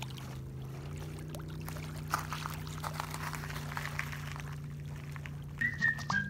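Small waves lapping and trickling against the rocky shoreline, over a steady low hum. Near the end a high, falling melodic line comes in.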